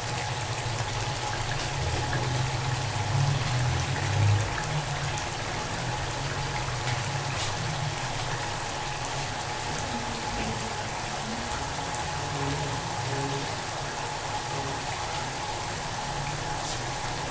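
Curry of chicken, onions and yogurt sizzling and bubbling in a pot over medium heat: a steady crackle with occasional sharper pops, over a steady low hum.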